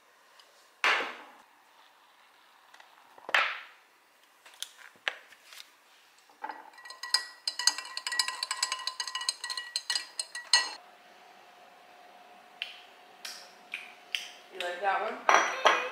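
A metal tea-infuser ball clinking rapidly against the inside of a glass mug as the tea is stirred, the glass ringing, for about four seconds in the middle. Before that come two sharp knocks, and a brief voice is heard near the end.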